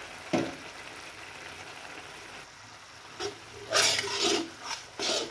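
Chilli sambal sizzling gently in a wok, with a short knock just under half a second in. From about three seconds in, a steel spatula scrapes and stirs it around the wok in several loud strokes.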